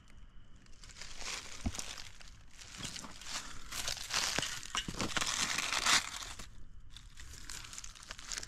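Close rustling and crunching of dry grass and leaves being pushed through. It is densest in the first few seconds and eases off about six seconds in.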